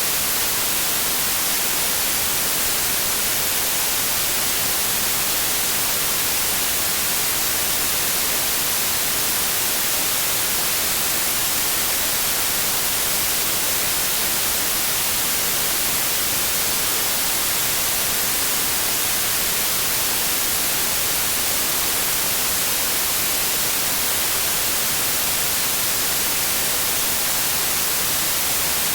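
Steady, unchanging white noise: an even hiss across all pitches, strongest in the highs.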